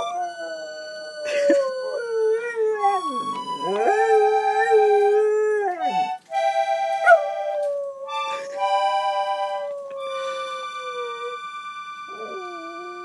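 A dog howling along to an accordion: long howls that waver and slide in pitch over held accordion chords, with short breaks between them. The howling stops a little before the end while the accordion plays on.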